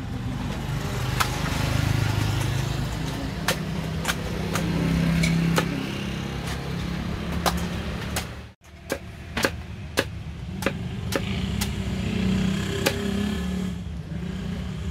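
Machete chopping the husk of a young green coconut on a wooden block: a series of sharp chops, roughly one a second, over a steady engine rumble of road traffic.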